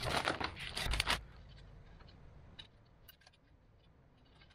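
Clear plastic packaging bag crinkling and rustling as it is handled and opened, loudest in about the first second, followed by a few faint clicks of plastic parts.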